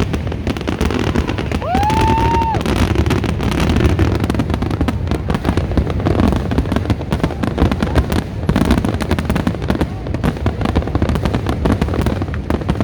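Fireworks display: a dense, continuous run of bangs and crackles. A short whistle rises and then holds about two seconds in.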